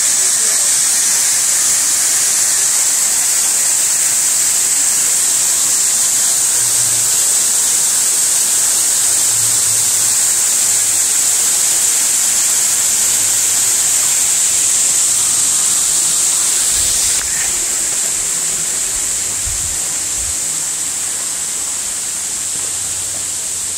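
Waterfall, its falling water a steady rushing hiss, dropping a little about two-thirds through.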